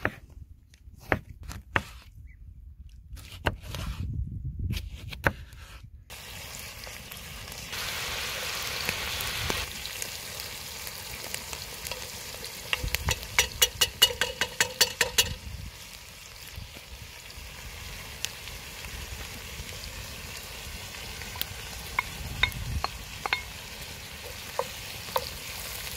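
A knife slicing through a tomato onto a wooden cutting board, a few sharp taps, then from about six seconds in onions frying in a cast iron pot with a steady sizzle. A wooden spoon stirring and knocking against the pot gives a quick run of taps midway and scattered knocks near the end.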